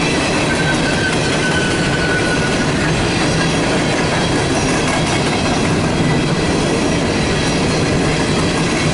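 Empty CSX coal hopper cars rolling past: a steady rumble and clatter of steel wheels on rail, with a faint high squeal briefly about a second in.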